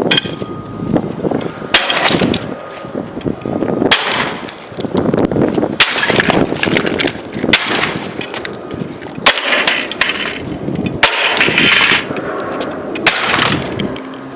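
A giant wrench smashing the plastic body of a Dyson ball upright vacuum cleaner: about eight heavy blows roughly every two seconds, each followed by cracking and clattering of broken plastic.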